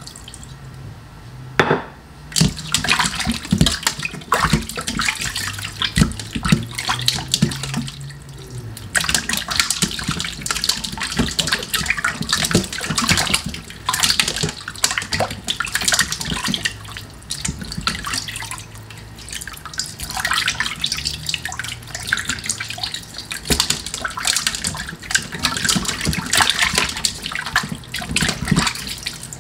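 Water splashing and sloshing as hands rub and turn raw chicken wings in a stainless steel bowl of water, rinsing them with lemon and vinegar. The splashing comes in irregular bouts with brief pauses about 8 and 18 seconds in.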